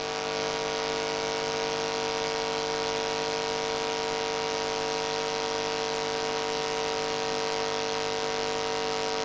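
Steady electrical buzz and hiss on the sound system: a strong mid-pitched hum with several fainter steady tones, unchanging throughout.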